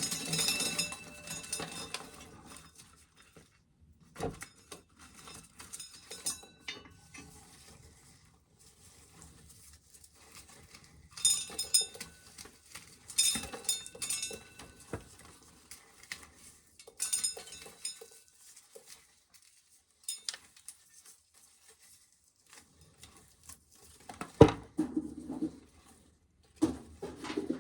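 Dry corn kernels being shelled off the cob, clicking and pattering in short, intermittent bursts, with a louder knock near the end.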